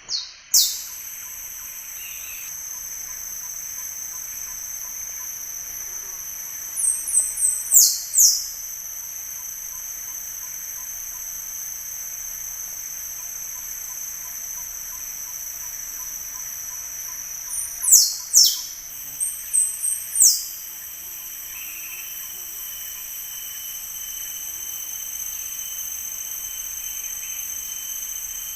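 Rainforest insects, most likely cicadas, holding a loud, steady, high-pitched drone. It is broken a few times by short bursts of quick notes ending in sharp falling whistles: once near the start, once about a quarter of the way in, and in a cluster about two-thirds of the way through.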